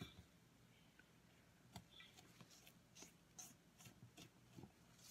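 Faint, soft scrapes and taps of a spatula stirring sticky dough in a stainless steel mixing bowl, a light stroke roughly every half second from a couple of seconds in, over a low steady hum.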